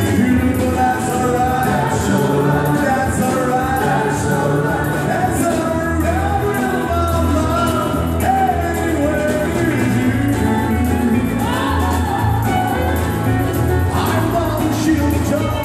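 Live country band playing: strummed acoustic guitars with fiddle and tambourine, and a man singing over a steady bass.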